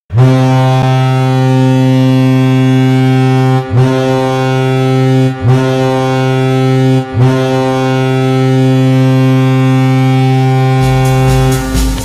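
Colorado Avalanche 2021 hockey goal horn blowing in four deep blasts: a long one, two short ones, then a long one. The goal song starts near the end.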